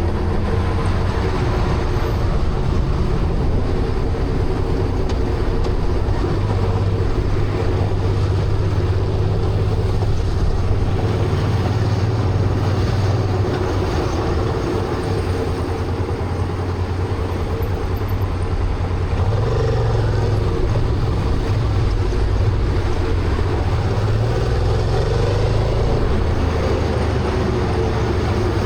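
Honda Transalp motorcycle riding at a steady cruise: the engine runs evenly under wind and road noise.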